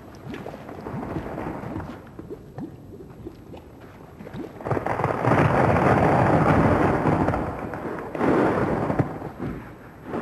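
A deep, rushing rumble swells up about halfway through, holds for a few seconds, drops, then surges once more near the end.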